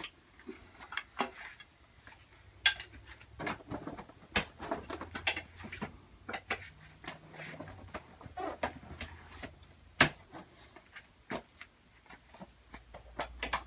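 Hands tying a trellis net's elastic cord ends onto grow-tent poles: irregular light clicks and taps from the net's fittings knocking against the poles, with a sharper knock about two and a half seconds in and another about ten seconds in.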